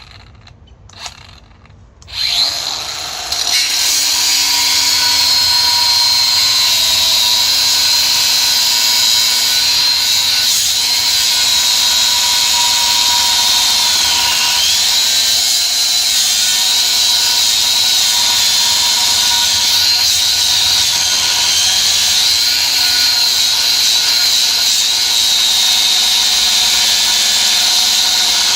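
Cordless angle grinder starting up about two seconds in, after two short knocks, then cutting into a steel rail with a steady high whine whose pitch dips briefly a few times as the disc bites under load.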